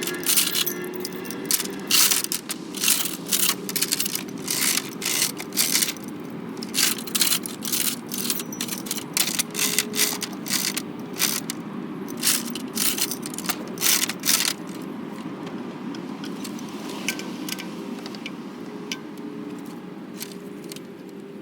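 Metal clanking and chain rattling from an engine hoist as a truck engine is lowered into the bay and set on its motor mount. The clanks come thick and fast for the first two-thirds, then thin to a few faint clicks over a steady low hum.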